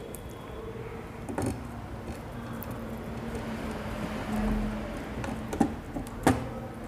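A hand screwdriver tightening screws into the TV's metal chassis: a few sharp clicks of the tool and screw, the loudest near the end, over a steady low hum that swells briefly in the middle.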